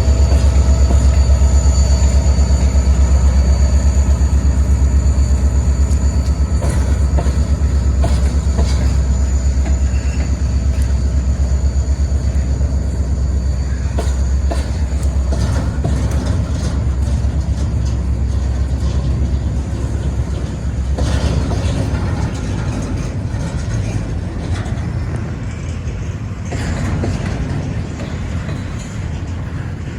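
Freight train cars rolling past at close range: a loud, steady rumble with wheels clicking over rail joints and a thin high squeal of wheels on rail, easing slowly toward the end.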